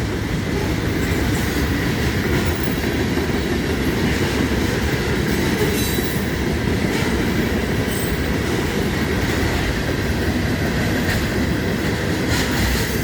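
Railroad cars rolling past at close range: a steady rumble of wheels on rail, with a faint high wheel squeal and a few brief clanks.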